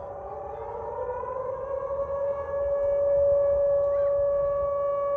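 Civil defence siren sounding a steady tone. A second, lower tone glides up to merge with it in the first two seconds, and the sound grows louder about halfway through.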